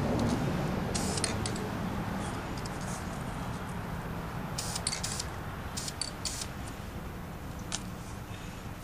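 Aerosol spray-paint can hissing in several short bursts, about a second in, twice more around five to six seconds in and once near the end, over a steady low rumble.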